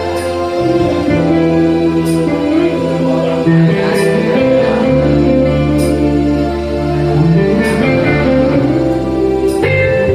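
A live band playing a song, with a bass line under sustained guitar or keyboard chords. A sharp cymbal-like strike comes about every two seconds.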